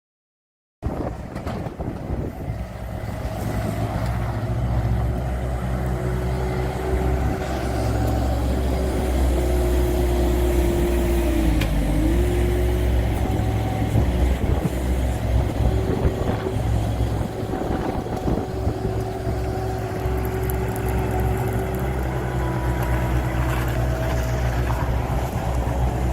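Engine of a heavy machine working a Simex ST200 asphalt paver attachment, running steadily at working speed with a steady whine over it that dips briefly about twelve seconds in. It starts abruptly just under a second in.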